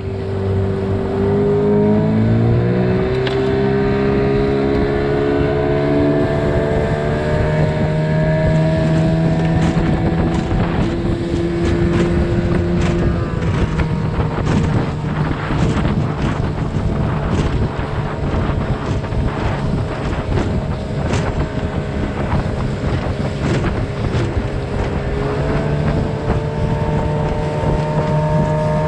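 Outboard motor of a small skiff running under way. It picks up speed over the first few seconds, settles lower about halfway through and rises again near the end. Sharp slaps of the hull on the chop and wind noise on the microphone sound over it.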